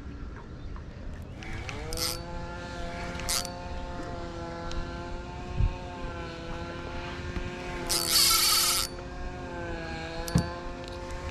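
A boat's outboard motor revving up about a second and a half in and then running at a steady pitch, with a few light knocks and a loud second-long hiss about eight seconds in.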